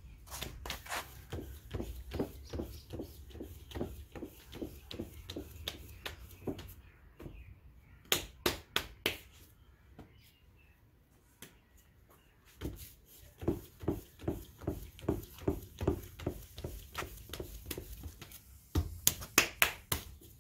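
Hands slapping and patting lumps of wet pottery clay against a wooden board, shaping them into blocks for the potter's wheel. The pats come in quick runs of about three a second, with a pause midway and a few louder slaps near the end.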